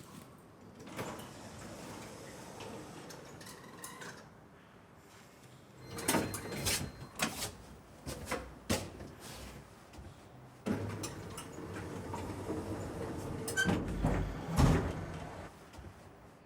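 Irregular knocks, clicks and scraping noises, with a busier cluster of knocks near the end.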